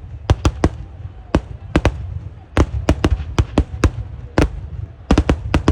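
Eeduvedi fireworks: a rapid, irregular volley of sharp explosions, about three to four bangs a second and often in quick clusters, over a continuous low rumble.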